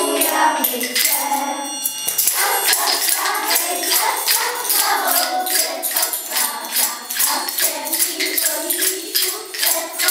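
Group of voices singing a song, with a tambourine or jingle ring shaken in a steady rhythm over it.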